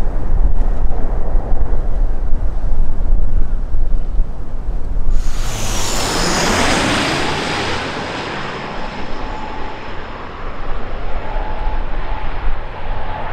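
Jet airliner passing low overhead: a low rumble, then about five seconds in a sudden loud rush as it goes over, with a high whine that falls in pitch, and the noise easing off afterwards.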